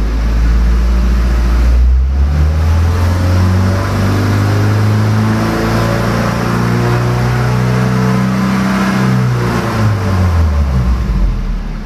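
A Toyota Avanza's four-cylinder petrol engine is revved from idle over the first couple of seconds and held high at about 2,600 to 3,500 rpm. Near the end it drops back toward idle. The engine is warm, and this is a free rev while live data (rpm, ignition timing advance, manifold pressure) is read on a diagnostic scan tool.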